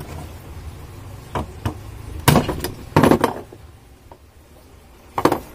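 Knocks and clinks of metal parts and tools while a stand fan's motor is being worked on: a few light taps, then two louder strikes with a short ring about two and three seconds in, and one more strike near the end.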